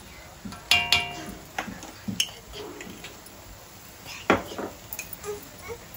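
Kitchen utensils knocking against an iron wok as noodles are mixed: a sharp, ringing clank about a second in, another knock about two seconds in, and the loudest clank a little after four seconds in.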